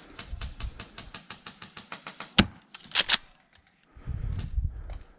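Airsoft guns firing: a rapid full-auto string of sharp clicks, about ten a second, for the first two seconds. Then a single sharp crack, followed half a second later by two loud clacks close together. A low rumble comes near the end.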